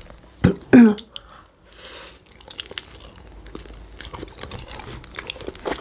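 Eating sounds close to the microphone: small clicks of chewing and biting pastry, with a light crinkling of a plastic wrapper. A brief vocal sound comes just under a second in, and a sharp click right at the end.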